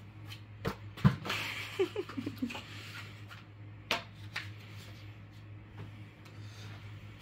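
An aquarium heater's cardboard box and packaging being handled as the heater is unpacked: rustling and scraping with a few sharp taps, the loudest about a second in, over a steady low hum.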